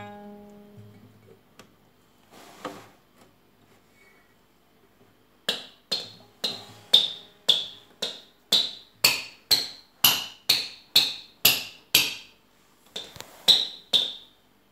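A hammer tapping on a guitar. A string note rings out at the start and one tap comes about two and a half seconds in. Then comes a steady run of about fourteen sharp taps, roughly two a second, with a short burst of about four more near the end.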